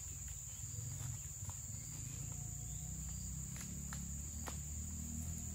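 Steady, high-pitched drone of insects, with a low rumble underneath and a few faint clicks.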